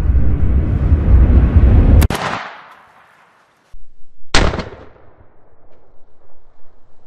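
Two shotgun blasts about two seconds apart, each a sharp crack with a short fading echo, the second after a moment of near silence. A loud low rumble runs before the first blast.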